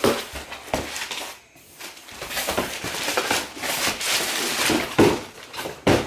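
Cardboard boxes being handled: the scrape and rustle of a boxed product sliding out of a large shipping carton, with several knocks of cardboard, the loudest about five seconds in and just before the end.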